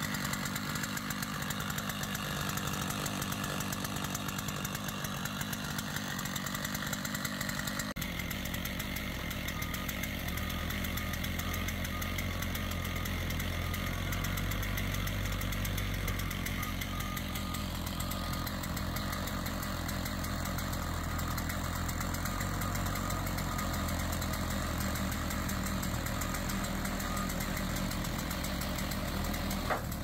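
A chainsaw running as it cuts a section off a cedar log. About eight seconds in, the sound switches abruptly to a backhoe's engine running steadily with a low hum as the machine handles the logs.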